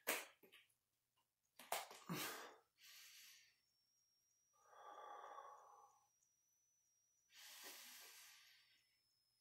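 A man settling into a plank on a rubber floor mat: a few knocks and rustles in the first two seconds or so, then three slow breaths, spaced a couple of seconds apart, as he holds the plank.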